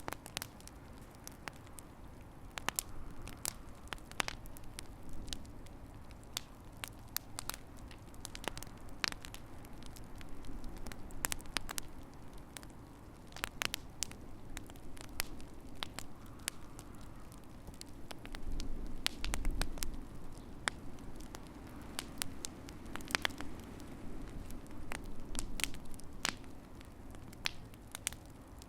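Wood fire crackling in a fireplace: irregular sharp snaps and pops, some in quick clusters, over a steady low rumble of the flames.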